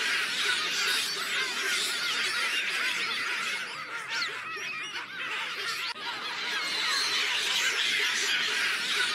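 A troop of baboons screaming and shrieking together: many shrill, overlapping calls with no break, dipping a little in the middle.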